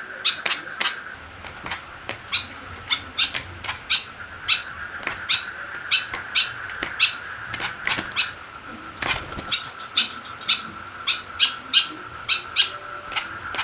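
White-breasted woodswallow calling: short, harsh notes in quick pairs and triples, two to three a second, with a steady high tone underneath.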